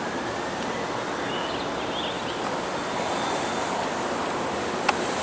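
Steady rushing wind noise on the microphone outdoors, with a few faint high chirps about a second and a half in and a single sharp click near the end.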